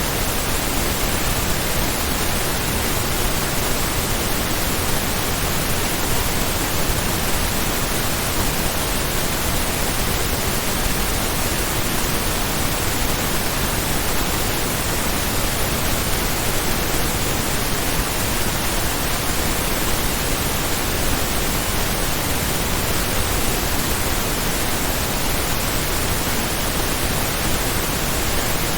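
Pink noise test signal: a steady, even hiss spread across the whole audible range, generated as true stereo (independent noise in each channel) and held at a constant loudness with no changes or breaks.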